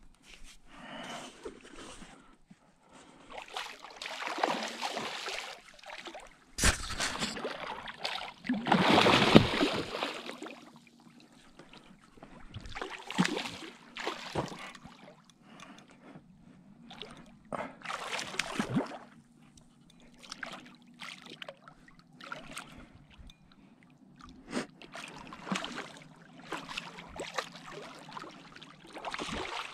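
Water splashing and sloshing in irregular bursts as a hooked wels catfish thrashes at the surface beside an inflatable boat. There is a sharp knock about seven seconds in, and the loudest splashing comes a couple of seconds after it.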